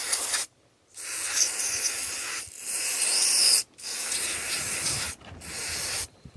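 Aerosol carburetor cleaner spraying onto a chainsaw carburetor cover, a loud hiss in several bursts with short breaks between them.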